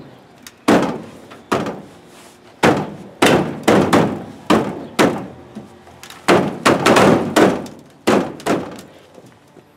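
Heavy thuds as a bed rail cap is pounded down by hand onto a Ford F-250 pickup's bed side: about fifteen blows in uneven groups over some eight seconds, stopping near the end.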